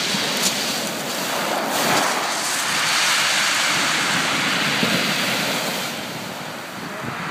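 Sea waves breaking and washing up a shingle beach: a steady rush of surf that swells about two seconds in and eases near the end, with a couple of sharp clicks.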